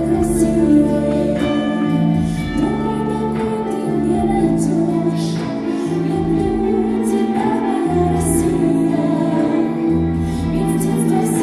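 A song performed with singing over instrumental backing: sustained notes over a changing bass line, with light cymbal hits.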